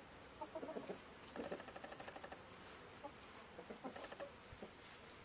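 Chickens clucking softly: faint, scattered short calls.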